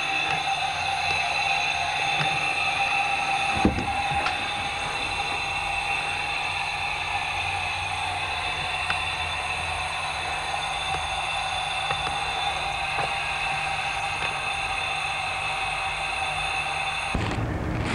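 Diesel-electric locomotive idling, heard from inside its cab: a steady high whine over a low engine hum, with a single knock about three and a half seconds in. The sound cuts off shortly before the end.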